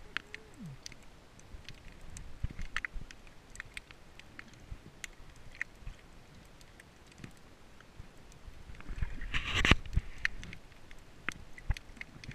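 Muffled underwater sound heard through a waterproof camera housing: scattered sharp clicks and crackles, a short falling tone in the first second, and a louder rush of water or bubbles about nine and a half seconds in.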